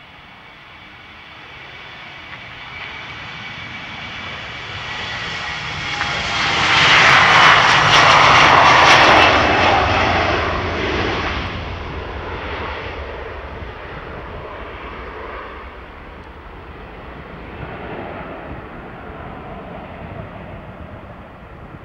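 Embraer E-Jet's twin GE CF34-8E turbofans at takeoff thrust. The engine whine builds as the jet accelerates down the runway, is loudest as it passes about seven to ten seconds in, then fades as it climbs away.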